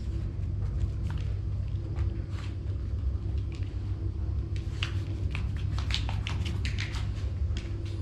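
A steady low rumble, with scattered light clicks that cluster between about five and eight seconds in: a small dog's claws tapping on a tile floor.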